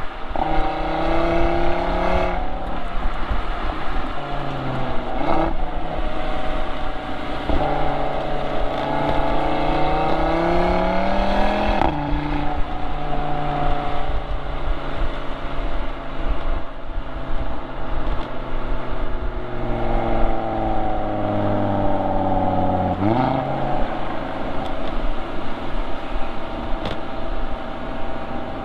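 Audi RS3's turbocharged five-cylinder engine and exhaust, heard from a microphone on the rear of the car while driving. The revs climb and fall several times with throttle and gear changes, with a quick jump in revs near the end.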